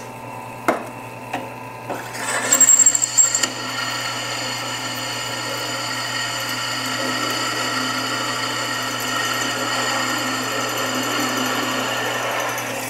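Drill press running with a steady hum, with a few light clicks at first. About two seconds in, a resharpened twist drill bit bites into steel with a brief high squeal, then cuts steadily, cutting very nicely, until it stops near the end.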